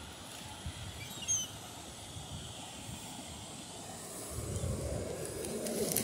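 Ocean surf and wind hissing steadily along the shore, swelling into a louder low wash of a wave over the last two seconds. A few faint, high bird calls come about a second in.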